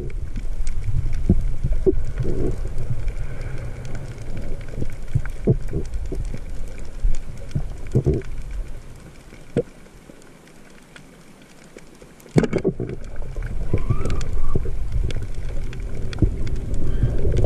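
Muffled underwater noise heard through a camera housing while spearfishing on a reef: a low rumble of moving water with scattered sharp clicks. It drops quieter for a couple of seconds past the middle, then comes back suddenly.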